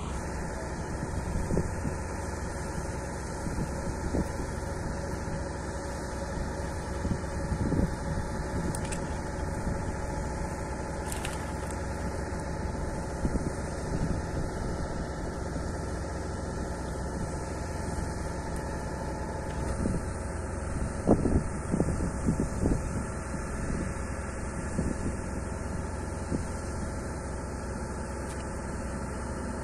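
An engine running steadily at idle, a constant low hum with an unchanging pitch, with a few short soft knocks about two-thirds of the way through.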